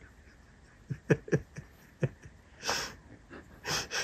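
Boots on wooden stairs: a few knocks on the steps, with short, breathy huffs from the climber.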